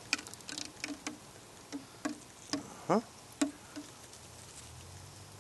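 A series of sharp clicks and knocks as a rock of ore is handled against the drop saw's table and guard, the loudest with a short rising squeak about three seconds in. A faint low hum comes in near the end.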